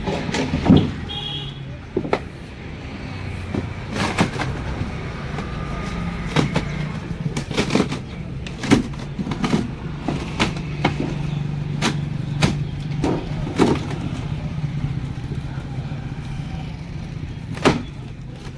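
Irregular knocks and bangs, roughly one a second, as a refrigerator is being broken apart, over a steady low hum.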